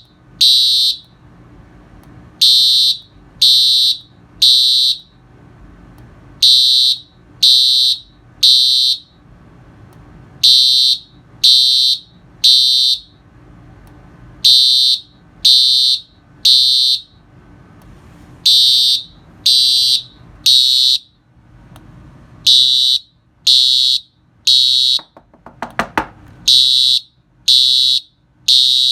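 Simplex TrueAlert fire alarm horn sounding the temporal-three evacuation pattern: three loud, high-pitched blasts about a second apart, then a pause, repeating every four seconds.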